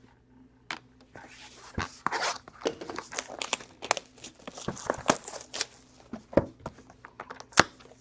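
Plastic shrink wrap and cardboard crinkling and tearing as a sealed trading-card box is opened, a dense run of irregular crackles and rustles that starts about a second in.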